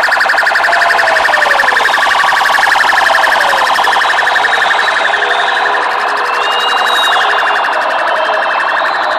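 Police car siren sounding with a fast, even pulsing warble, loud and steady, with shorter rising and falling tones over it.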